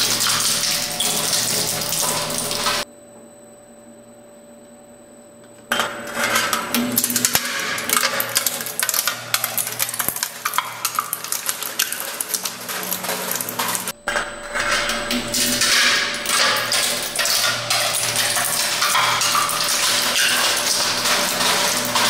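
Twin-shaft shredder running, with a polished steel bowl rattling and scraping against its hooked cutter discs, metal on metal, over the machine's steady hum. About three seconds in, the clatter stops for about three seconds and only the hum remains, then the clatter resumes.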